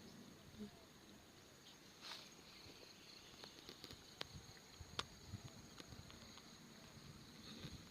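Faint steady insect chirring, with scattered light clicks and taps.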